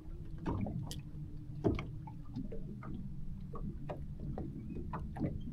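Steady low hum aboard a small fishing boat on the water, with scattered light ticks and knocks over it.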